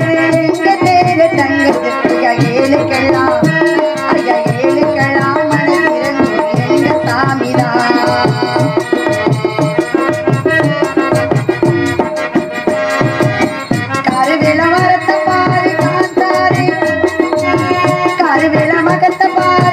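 Live Tamil folk song: a woman singing into a microphone, backed by tabla-style hand drums keeping a steady beat and a held melodic accompaniment.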